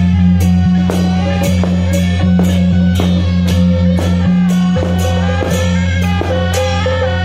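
Procession troupe's band music: a steady drum beat about twice a second over held bass notes, with a melody line on top.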